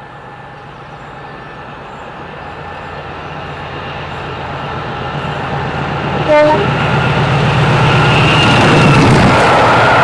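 English Electric Class 50 diesel locomotive approaching at speed under power, its 16-cylinder engine growing steadily louder, with a brief horn toot about six seconds in. Near the end it passes close and its engine note drops as it goes by, the rush of the coaches following.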